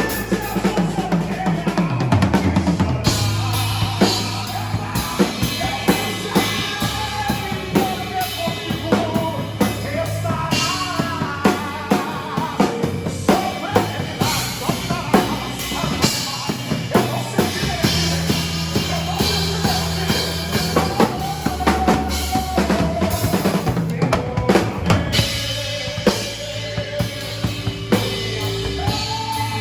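Live gospel band playing an instrumental passage: a drum kit with kick, snare and rimshots over held bass notes that change every few seconds, with a melody line on top.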